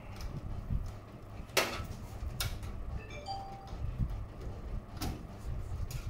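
Handling noise from working inside an open computer case: three sharp clicks or knocks, the first about one and a half seconds in with a short ringing tail, over a low steady rumble. A few faint short tones sound about halfway through.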